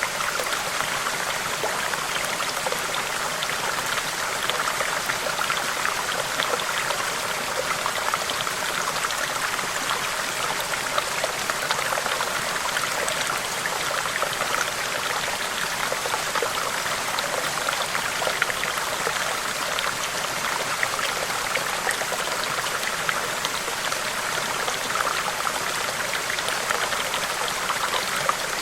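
Running water, a steady unbroken flow full of small splashes and drips, like a stream over stones.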